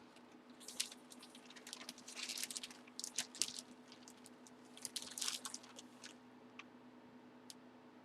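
Faint scattered crinkling and clicking of things being handled, in uneven clusters that die away after about six seconds, over a low steady hum.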